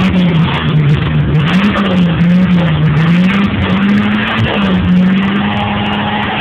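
Chevrolet Caravan's engine running, heard from inside the cabin. Its pitch dips and rises several times as the throttle is worked, then holds steady for the last couple of seconds.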